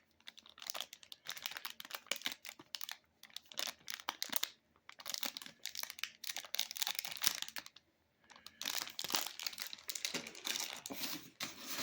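Plastic bag crinkling and rustling as it is handled, in irregular crackly bursts with two short pauses, one about halfway and one about two-thirds of the way in.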